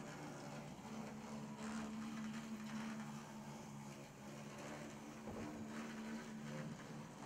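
HO-scale brass model of a Southern Pacific MK-10 2-8-2 steam locomotive running along the track, its can motor and gearing giving a faint, steady hum.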